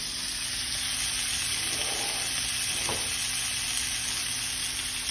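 Tuna steaks crusted in sesame seeds searing in hot sesame oil in a cast-iron skillet: a steady sizzle, with one faint click about three seconds in.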